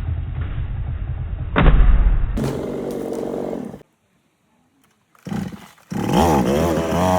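A heavy thud about a second and a half in, over a low rumble. Then a chainsaw engine runs steadily, cuts off, and near the end starts again, revving up and down.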